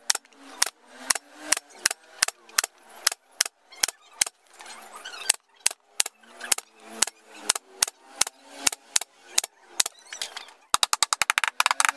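Pneumatic brad nailer firing brads into a wooden panel: one sharp shot after another, about two to three a second, then a fast run of about a dozen shots near the end.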